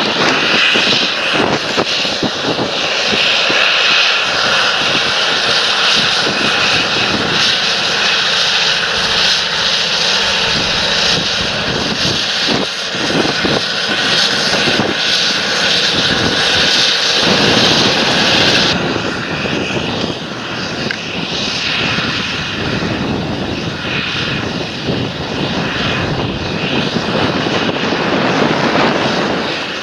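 Large John Deere tractor's diesel engine running steadily while working the field. The sound changes abruptly about two-thirds of the way through, turning duller.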